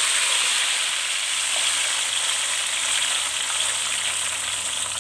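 Blended paste of onion, garlic and ginger, made with water, sizzling in hot oil in a wok just after it goes in: a loud, steady, hissing fry.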